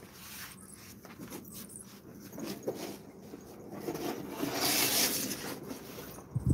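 Cardboard toy box being handled and pushed across a tiled floor: scattered light knocks and scuffs, with a longer rustling scrape about four to five and a half seconds in.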